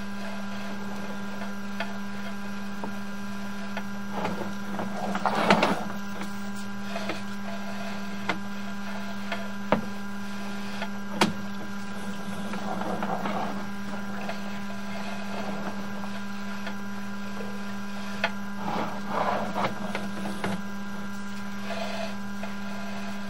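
Sewer inspection camera equipment giving off a steady hum while the camera's push cable is pulled back through the pipe, with irregular scraping and rustling and a few sharp clicks as the cable and camera head move.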